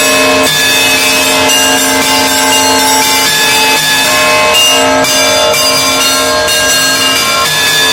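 Russian Orthodox monastery bells ringing together in a full peal: many bells of different pitches struck in quick succession, small high bells chiming rapidly over recurring deeper bell tones, all ringing on into one another.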